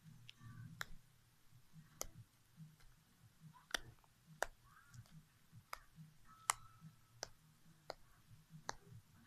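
Puffy slime being squeezed and handled, making sharp clicking pops about once or twice a second.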